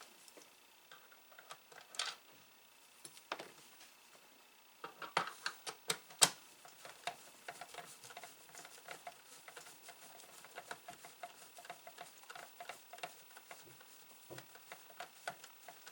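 A screwdriver turning a screw into the plastic case of an Atari SF354 floppy disk drive: sharp clicks and taps over the first six seconds, then a long run of light, rapid ticking as the screw keeps turning without tightening, which the owner suspects is a stripped screw hole.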